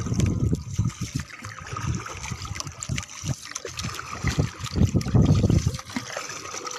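Water splashing and lapping around a small wooden outrigger canoe as it is paddled on open sea, with wind rumbling on the microphone in irregular gusts.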